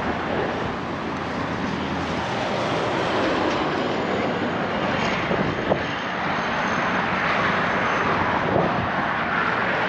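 Steady rushing noise of road traffic on the bridge, building over the first couple of seconds and then holding.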